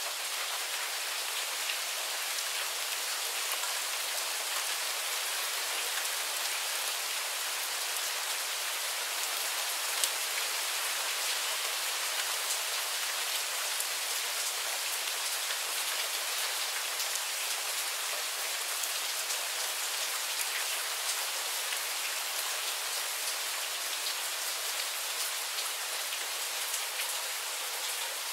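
Steady rain shower falling, an even hiss of rain with many single drops ticking close by, and one sharper drop strike about ten seconds in.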